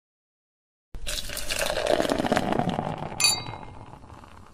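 Beer being poured into a glass, starting about a second in, then a single clink of two glass mugs with a brief bright ring that fades away.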